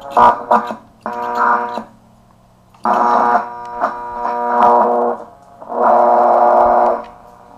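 A 1920s Atwater Kent breadboard radio's loudspeaker gives out a steady-pitched buzzing hum that comes and goes in blocks as the tuning dials are turned, with a few crackles near the start. The buzz is interference picked up by the set, which the owner takes for neighbours' plasma TVs.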